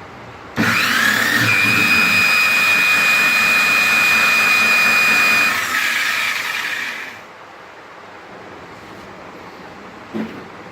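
An electric power tool starts suddenly and runs at speed, spinning an air-conditioner motor to generate electricity. The whine climbs as it starts up, holds a steady high pitch, then winds down and stops about seven seconds in.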